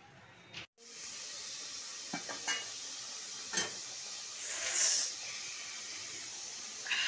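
Tripe boiling hard in water in an aluminium pot, a steady bubbling hiss as the water boils down. It is broken by a few light metal clinks around the pot and a louder rush of noise about halfway through.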